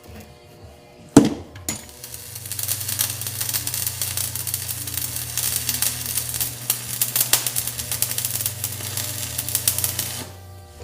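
Arc welding a bead on a tractor's hydraulic accumulator to seal a leak: a sharp click about a second in, then a steady crackle for about eight seconds that stops shortly before the end as the pass finishes.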